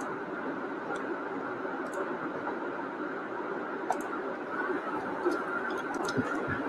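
Steady hiss of an open microphone's background noise, with faint ticks about once a second.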